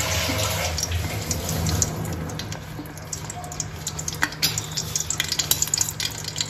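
Butter melting in hot oil in an aluminium pressure cooker, sizzling, with a steady low hum underneath. Quick crackles and pops from the fat start about two seconds in and keep going.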